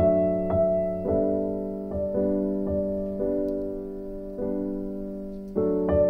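Background piano music: slow chords, a new one struck every second or so and left to ring and fade.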